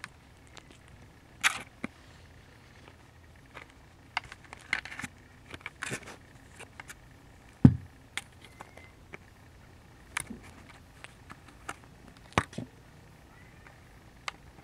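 Camera handling noise from Siamese kittens pawing at and bumping against the camera at close range: scattered sharp clicks, scratches and taps, with one louder low thump about halfway through.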